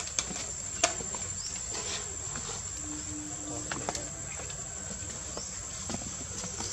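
Outdoor ambience: a continuous high-pitched steady whine over a low background hiss, with scattered small clicks and rustles, and a brief low hum about three seconds in.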